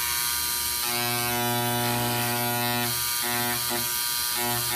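Electric engraver buzzing as its rapidly vibrating tip engraves letters into a sheet of aluminum. The buzz is steady and changes in tone in short stretches from about three seconds in.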